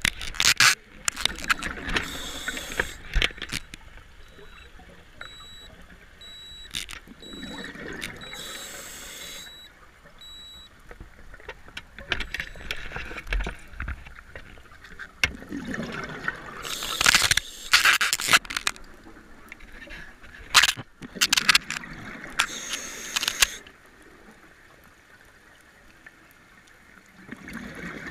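Scuba regulator breathing underwater: the hiss of an inhalation, then a noisy rush of exhaust bubbles, repeating every several seconds.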